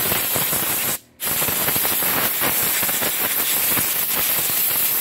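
Compressed-air blow gun blasting air into a shotgun's action to blow out residue and dry it, a loud steady hiss that cuts out briefly about a second in and then resumes.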